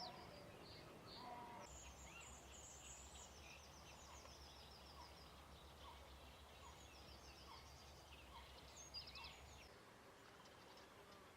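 Faint chorus of several songbirds singing, with quick high notes, trills and rapid chattering phrases overlapping. A faint low rumble sits underneath from about two seconds in until near the end.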